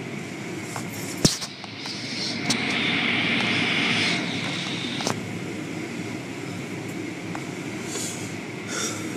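Automatic car wash heard from inside the car: hanging cloth strips dragging and slapping across the windshield over a steady machinery rumble and spray. A hiss swells from about 2.5 to 4 seconds in, and there are two sharp knocks, the louder about a second in.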